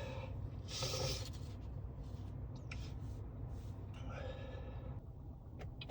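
Steady low drone of a car's engine and tyres heard inside the cabin while driving, with two short breaths, about a second in and around four seconds in.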